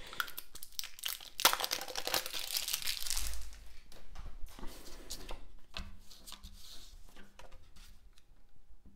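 Paper and a plastic liquid glue bottle being handled on a cutting mat: rustling and scraping, busiest in the first three and a half seconds, then lighter.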